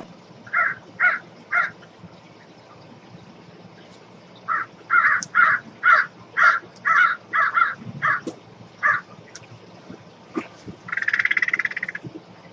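Crow cawing: three caws, then a quick run of about ten, then one longer, harsher call near the end.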